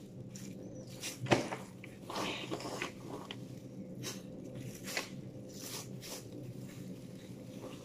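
Plastic garbage bag rustling and crinkling as trash is rummaged through by hand, in irregular short bursts, the sharpest about a second in.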